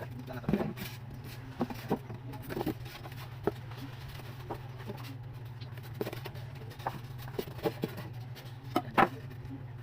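Scattered light knocks and clicks from handling and fitting parts on a cooler, with one sharper knock near the end, over a steady low hum.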